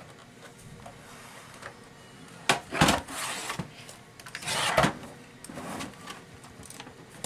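Hard plastic knocks and scrapes as a Zebra ZD500 label printer is handled and its cover worked: two sharp knocks in quick succession about a third of the way in, each trailed by a short scrape, then another scrape ending in a knock a little past the middle.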